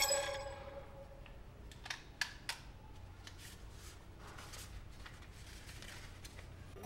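A short ringing chime-like effect at the very start, then crisp crackles and soft rustling of a sheet of lined notebook paper being unrolled and flattened by hand.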